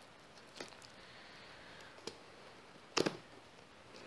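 Cardboard headphone box being opened by hand: a few faint clicks and scrapes, then a louder, sharp crackle of the cardboard flap about three seconds in.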